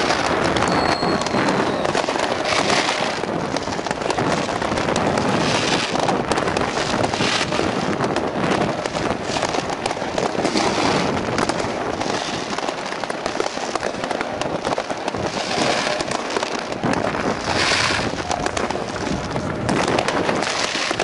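Many fireworks and firecrackers going off at once in a dense, continuous crackle, with louder bangs from rocket bursts every few seconds.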